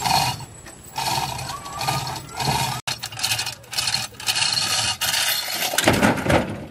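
Hand chain hoist being hauled in a series of short pulls, its chain rattling and rasping through the block as it winches an overturned mini truck upright.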